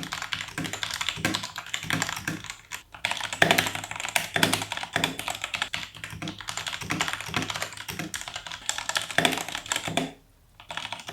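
Typing on a Vortex VX5 mechanical keyboard with Outemu Red linear switches: a fast, uneven run of keystroke clacks. The typing breaks off for a moment near the end.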